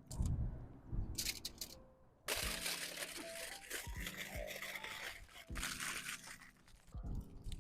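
Irregular crunching and crinkling handling noises, thicker and more continuous from about two seconds in.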